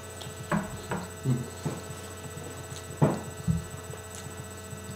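Steady electrical mains hum, with a handful of short, soft sounds of people eating (chewing and mouth noises) in the first few seconds.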